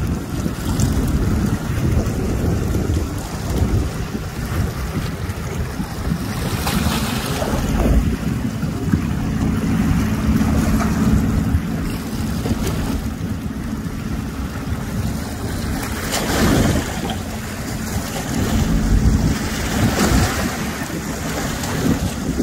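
Wind buffeting the microphone over choppy river water washing and lapping, in uneven gusty swells. A steady low hum joins in for a few seconds in the middle.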